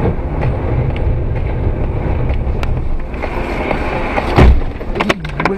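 Steady car road and engine noise heard inside a moving car, with a loud thump about four and a half seconds in, followed by a few sharp knocks near the end.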